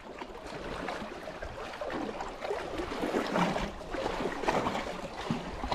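Sea water washing against a rocky shore, with wind noise on the microphone: a steady, irregular hiss.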